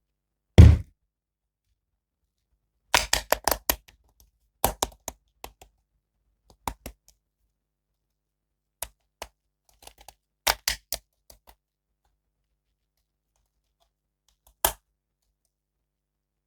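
Toy figure and packaging being handled: a heavy thunk, then quick bursts of sharp clicks and knocks, a few isolated taps, and another thunk at the end.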